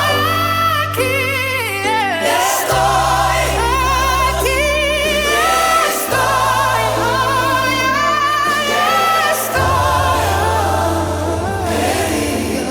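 Worship music: sustained, wordless vocals with vibrato over held bass notes that change chord about every three seconds.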